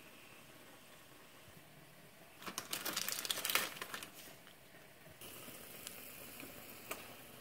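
Packet of instant ramen crushed by hand, the plastic wrapper crinkling and the dry noodle block crunching for about a second and a half, a couple of seconds in. A single click follows near the end.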